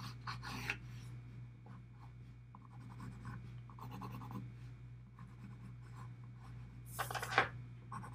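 Graphite pencil shading on sketchbook paper in quick, scratchy back-and-forth strokes, with one louder rub about seven seconds in.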